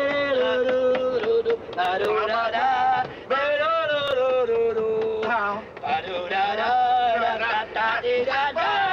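A man imitating a saxophone with his voice, humming a tune in long held and gliding notes, with a few sharp clicks.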